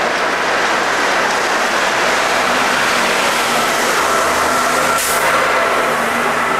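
Busy street traffic with a double-decker bus's engine growing louder as it passes close by, about four seconds in. A short hiss sounds about five seconds in.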